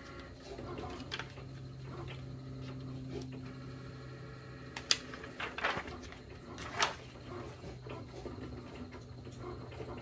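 Clear plastic heat-transfer carrier sheet rustling as it is handled and smoothed by hand, with a few short sharp crinkles in the middle, the loudest about five seconds in. A steady low hum runs underneath.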